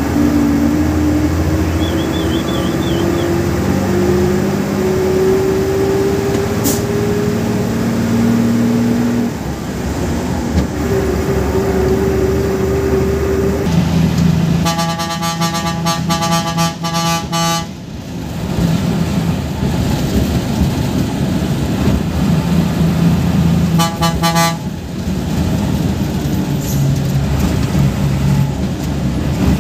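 Bus engine running under load, its pitch rising steadily for several seconds before it drops, heard from the driver's cabin. About halfway through a horn sounds in a rapid stuttering string of toots for about three seconds, then once more briefly about ten seconds later.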